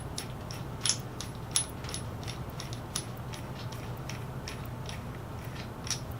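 Light metallic clicks and clinks of steel knockout punch and die pieces being handled and fitted together, a few scattered taps over a steady low hum.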